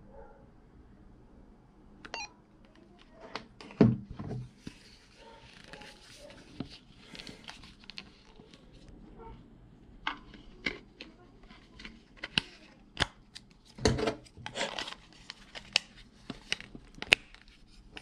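Hard plastic clicks, snaps and knocks from handling a Midland LXT500 two-way radio as its back is opened and its battery pack is taken out. The clicks come scattered, thicker in the second half, with louder knocks about four seconds in and again about fourteen seconds in.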